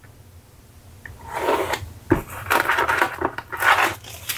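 A small cardboard box being opened and handled: after a quiet second, rustling and scraping of cardboard and plastic wrapping, with a single knock about two seconds in.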